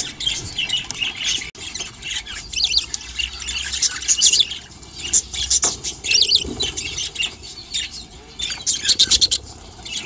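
Budgerigars chirping and squawking in short bursts of rapid, high-pitched calls.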